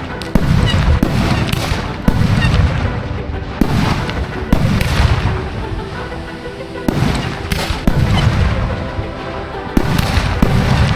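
Consumer fireworks going off in a steady string of bangs, roughly one a second, over a dance-pop song playing on the show's sound system.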